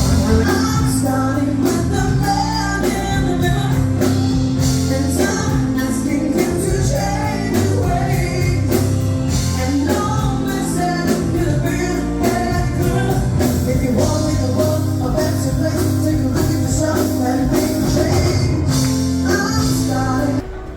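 Upbeat music with singing and a steady beat; it cuts off abruptly near the end.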